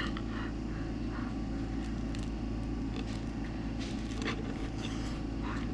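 Faint biting and tearing into a chewy grilled pork-intestine sausage, a few small crackles and mouth clicks over a steady low hum.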